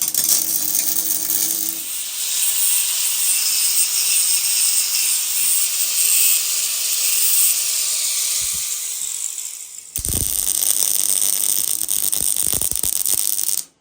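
MIG welder arc crackling and hissing as beads are laid on cracked motorcycle exhaust flanges: one run of about ten seconds, a short break, then a second run of about three seconds that cuts off abruptly.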